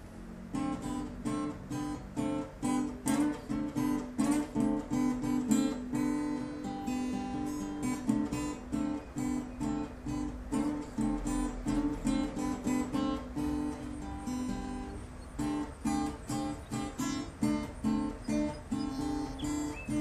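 Acoustic guitar playing a calm instrumental piece in a folk-rooted classical style: a steady run of plucked notes and chords.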